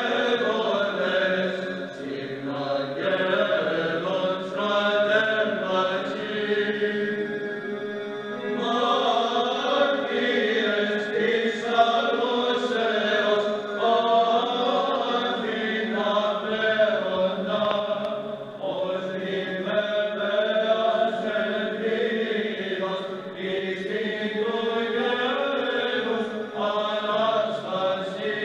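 Male choir of Byzantine chanters singing Orthodox chant a cappella, the melody moving above a steady held low drone (the ison).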